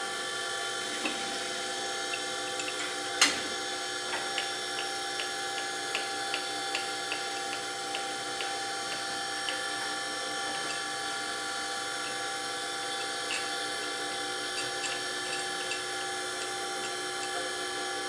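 Manual surface grinder table cranked by its handwheel, sliding from end to end on roller-bearing ways, with scattered light clicks and one sharper clack about three seconds in. A steady motor hum runs underneath. The table runs with no tight or loose spots.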